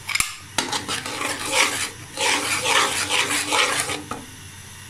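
Metal slotted skimmer spoon stirring a thick tomato sauce in a pan, scraping the pan in a run of strokes over a light sizzle; the stirring stops about four seconds in.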